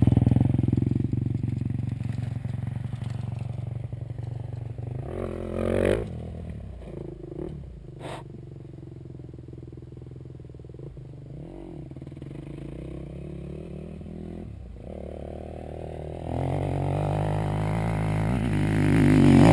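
Dirt bike engine running. It drops away about six seconds in to a faint distant engine, then grows louder again near the end, the revs rising.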